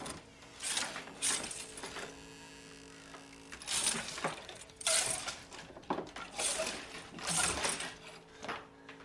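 Horror film soundtrack: a run of short rustling and clinking noises, as of clothes and hangers being pushed about in a dark wardrobe, over a faint steady low drone.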